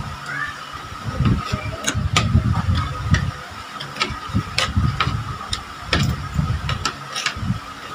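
Eating at close range: irregular chewing and mouth sounds with sharp clicks of utensils against a plate, over a faint steady background tone.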